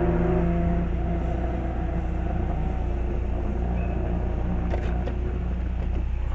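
Engine idling steadily, heard from inside the cab of a stationary recovery truck. A higher engine note fades away over the first second.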